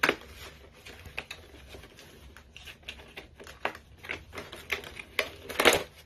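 Irregular clicks, taps and rustles of an action figure's cardboard-and-plastic box being handled, with a sharp click at the start and a louder half-second rustle near the end.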